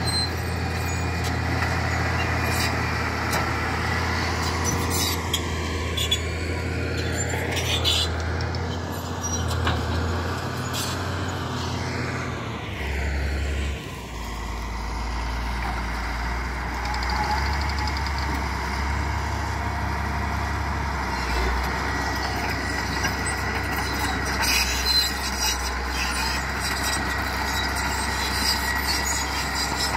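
Caterpillar D6 crawler tractor's diesel engine running steadily under load as it pulls a reversible two-furrow plough through the soil, with a few clanks.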